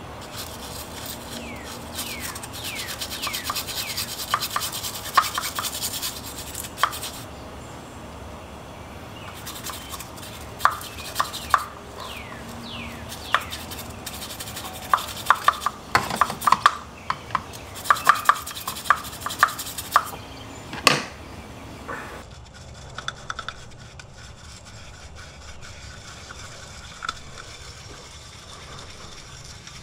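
Scrubbing and scraping grime out of the throttle bodies of a BMW E92 M3 engine: quick, repeated rubbing strokes against the metal bores with sharp scratches, getting quieter about twenty-two seconds in.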